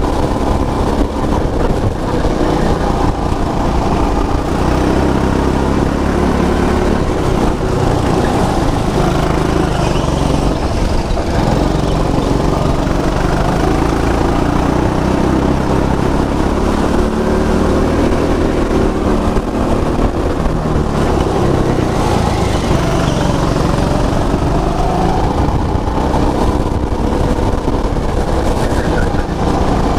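Small go-kart engine running hard throughout, its pitch rising and falling as the kart accelerates out of corners and slows into them.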